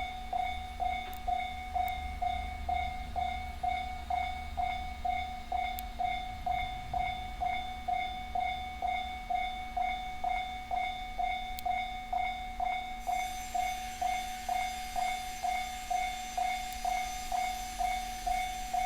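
Japanese railway level-crossing alarm, the JR standard electronic bell, ringing a steady repeating ding a little under twice a second. In the first several seconds a 701 series electric train's low rumble runs under it and then fades.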